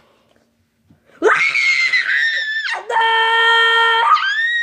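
A high-pitched voice screaming in long, drawn-out cries. It starts about a second in after a near-silent pause, with short breaks between the cries.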